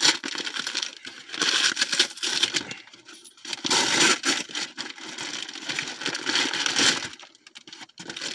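Plastic bag crinkling and rustling in irregular bursts as an item is pulled out of it.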